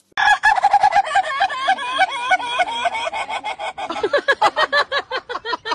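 Rooster calling in a fast, unbroken string of short squawks, several a second, which drop lower in pitch about four seconds in.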